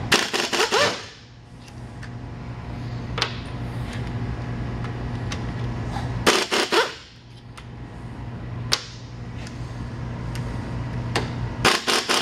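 Power ratchet with an Allen socket spinning out the hex bolts on a pressure-washer plunger pump's brass head. It makes three short runs of rapid clicking, one right at the start, one around the middle and one near the end, with a few single clicks between them.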